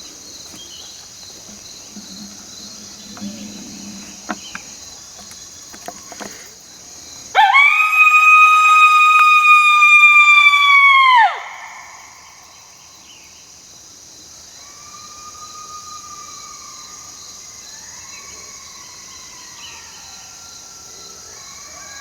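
One long howl blown on an MFK Howling Mofo coyote howler call, rising sharply, held steady for about four seconds, then dropping off. A few seconds later, coyotes answer with fainter, overlapping howls, over steady cricket chirring.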